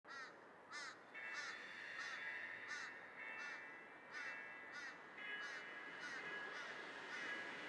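Crow cawing over and over, about one and a half calls a second, with a steady high ringing tone behind it from about a second in.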